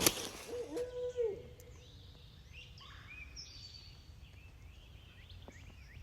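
Faint songbirds chirping and calling in the woods, many short sweeping notes. About half a second in, a short low-pitched tone lasts for about a second.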